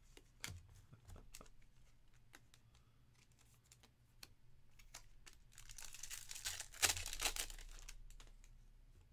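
Trading cards being handled with scattered light clicks and taps, then about five and a half seconds in a foil card-pack wrapper crinkling and tearing open for about two seconds, with a sharp snap in the middle.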